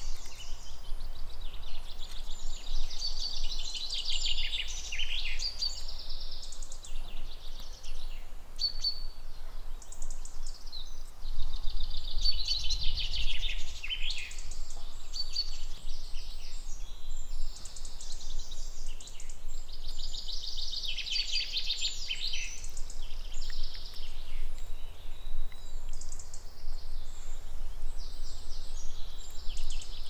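Wild birds singing in repeated trilling phrases, several songs coming and going, over a low steady rumble.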